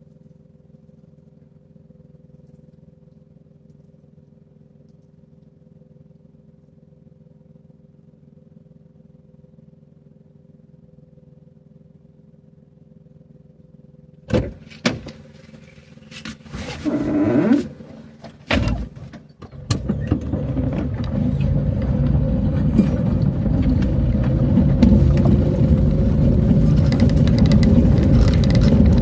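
A faint steady hum, then a few sharp knocks and a short rising whine, after which a vehicle engine starts about twenty seconds in and keeps running, getting louder toward the end.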